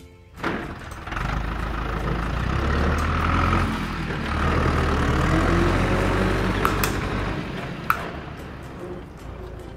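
Tractor engine running, starting about a second in, its pitch rising and falling slightly. Two sharp clicks come near the end.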